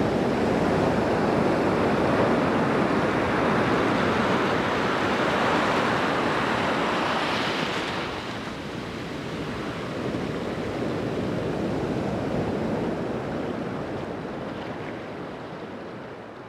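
Ocean surf: a steady rush of waves washing in. It swells through the first half, eases a little past the middle, and fades out near the end.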